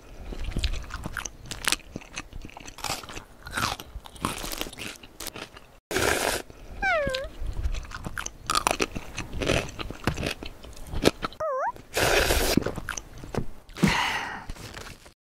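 Mukbang-style eating sounds: close, crisp chewing and crunching with clicks, broken by several longer, louder noisy stretches like noodle slurps. Two short squeaky wavering tones come about halfway through and again a few seconds later.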